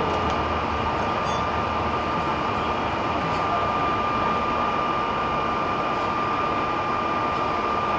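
Steady roar of vehicle engines and traffic, with a constant high-pitched whine running over it.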